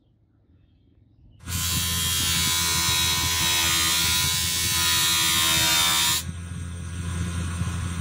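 Bench grinder starting up about a second and a half in, its motor humming steadily with a loud grinding hiss as the steel knife blade is held against the wheel. A little after six seconds the blade comes off and only the quieter motor hum remains.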